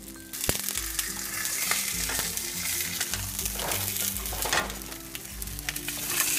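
Steak and potato patties sizzling in a hot nonstick frying pan, the sizzle coming in loud just after the start, with a plastic spatula scraping and turning the food.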